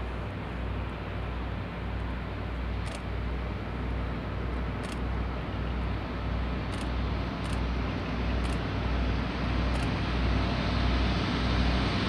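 Distant rumble of a pair of VR Class Dv12 V16 diesel locomotives hauling a freight train, approaching and growing steadily louder, with a low throbbing engine note.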